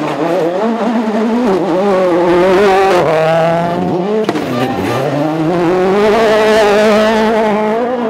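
Ford Fiesta RS WRC rally car's turbocharged four-cylinder engine at high revs under hard acceleration. The pitch climbs, drops sharply about four and a half seconds in, then climbs again.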